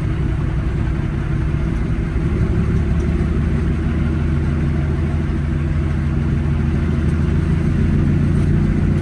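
Semi truck's diesel engine running steadily under way, its note shifting slightly about two seconds in.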